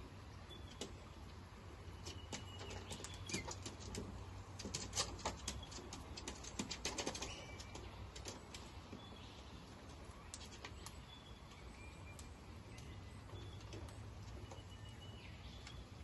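Male Australian king parrot pecking at a wooden railing: a run of small, sharp beak clicks and taps, coming thickest and loudest about five to seven seconds in. Faint short bird chirps sound now and then in the background.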